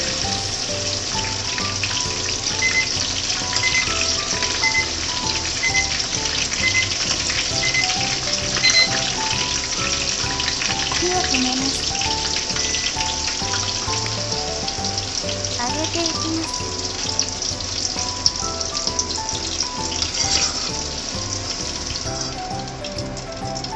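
Eggplant chunks deep-frying in hot salad oil in a pot: a steady, dense sizzle and crackle of bubbling oil. Light background music plays underneath.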